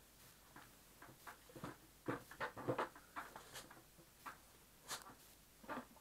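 Irregular clicks and light knocks of a plastic vacuum-cleaner housing being handled and set down, with a cluster of louder knocks about two to three seconds in. The motor is not running.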